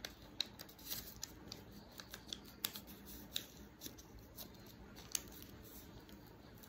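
Faint, irregular soft clicks and rustles of fingertips pressing and smoothing a paper blackhead strip onto the nose, with one slightly louder click about five seconds in.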